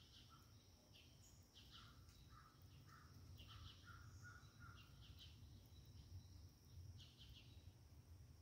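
Quiet outdoor ambience: small birds chirping in short, scattered calls over a steady high-pitched drone and a faint low rumble.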